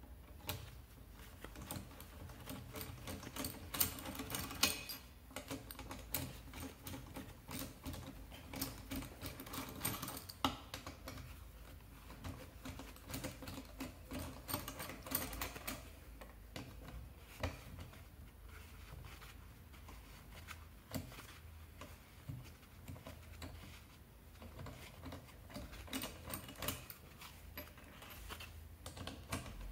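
Irregular small metallic clicks and taps from handling a scooter engine's aluminium crankcase and its small parts, with a low steady hum beneath.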